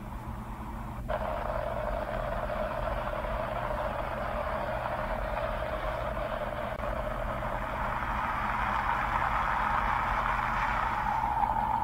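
Heavy rain pouring onto a flooded road, with the steady low hum of a vehicle engine underneath. The rain noise jumps up suddenly about a second in and grows a little louder near the end.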